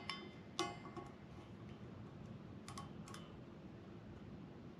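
Faint metallic clicks of a micrometer being closed and adjusted on an F23 crankshaft journal while measuring it: two pairs of short clicks with a brief ring.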